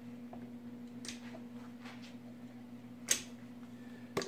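Caulking gun squeezing out construction adhesive: about four short sharp clicks from the trigger and plunger, the loudest about three seconds in, over a steady low hum.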